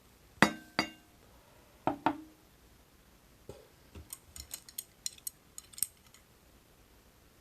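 Four light knocks and clinks of hard objects with a short ring to them, followed a second later by a quick run of small clicks and taps.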